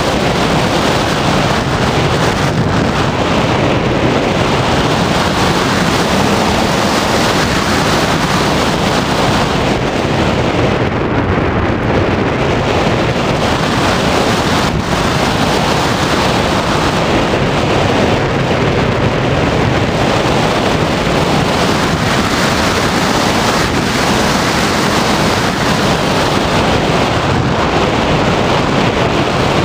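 Steady, loud rushing noise of flight: airflow and wind buffeting the microphone, unchanging throughout.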